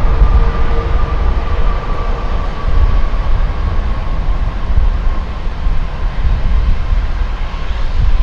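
Airbus A380's four Engine Alliance GP7270 turbofans heard from a distance during the landing rollout: a deep, steady rumble with an engine whine that slowly falls in pitch as the engines spool down after reverse thrust.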